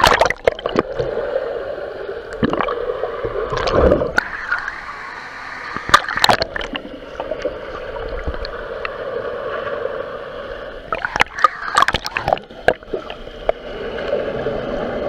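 Pool water heard through a camera held underwater: a steady muffled gurgling and rushing. Sharp splashes break in at the start, around four and six seconds in, and several times at about eleven to twelve seconds.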